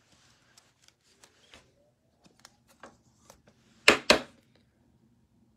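Trading cards being handled by hand: faint rustles and light ticks of card stock, then two sharp taps in quick succession about four seconds in.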